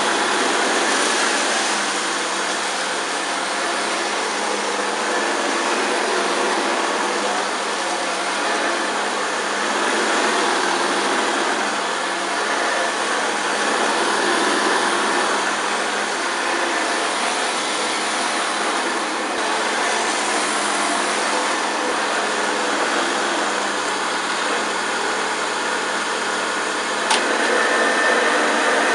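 1971 Hoover Senior 6525C upright vacuum cleaner running steadily over scattered cornflakes. It is pushing the flakes along and throwing them out the back rather than picking them up, though its suction is strong. A single sharp click comes near the end.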